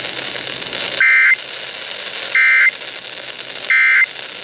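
Emergency Alert System end-of-message data burst: three short, loud, buzzy digital squawks about 1.3 seconds apart, over radio static, marking the end of the alert.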